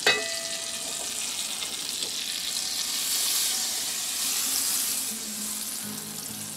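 Animal fat sizzling as it melts in a hot nonstick frying pan. It opens with a short metallic clink with a brief ring as the pan is taken by its handle. The sizzle swells for a couple of seconds midway while the pan is lifted and tilted to spread the fat.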